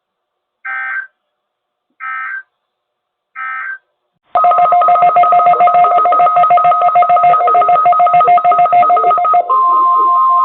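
NOAA Weather Radio signalling: three short data-tone bursts about a second and a half apart, which mark the end of the test message. About four seconds in, a loud, rapidly pulsing mix of tones over static begins. About 9.5 s in it turns into the steady 1050 Hz weather radio warning alarm tone.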